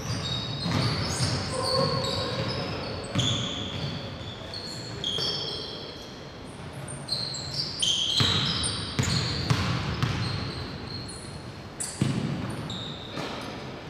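Basketball game play: the ball bouncing on the court, with a scatter of short, high-pitched sneaker squeaks on the floor.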